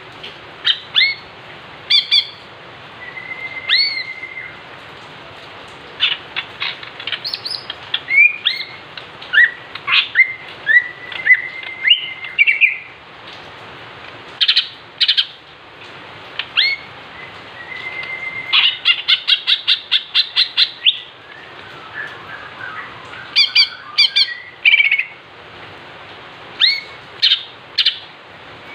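Male green leafbird (cucak ijo) calling excitedly: sharp chirps, whistled upward and downward slurs and squawky notes, with a fast run of clipped notes, about five a second, just before the middle. This is the agitated calling keepers play as a lure to provoke other cucak ijo males.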